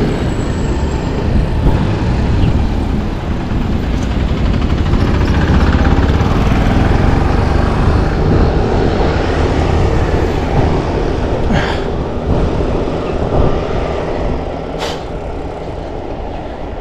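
A motor vehicle going past on the road: a low rumble that swells to its loudest around six to eight seconds in and then fades, with two short hisses near the end.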